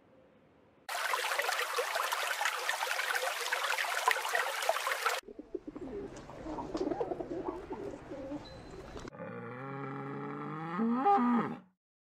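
About a second in, a burst of dense, hissing, scratchy noise runs for about four seconds and cuts off. Feral pigeons cooing follow. Near the end a bull gives a low, drawn-out bellowing moo that rises in pitch just before it stops.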